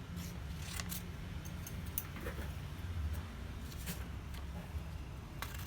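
Faint, irregular clicks of hand-forged left-handed scissors being opened and closed, the blades and handles knocking together, over a steady low hum.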